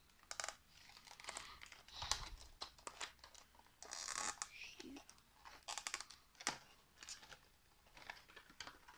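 Thin clear plastic blister tray crinkling and clicking as it is handled and pried apart: a run of irregular crackles and light taps.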